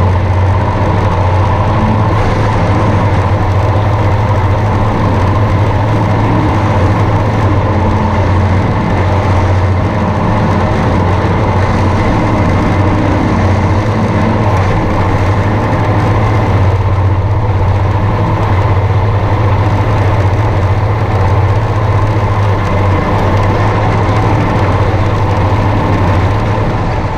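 Tractor's diesel engine running steadily at constant speed, with a strong low hum.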